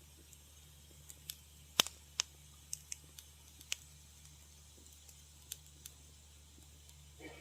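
Wood fire crackling in a fireplace: irregular sharp pops and snaps, the loudest about two seconds in, over a faint steady low hum.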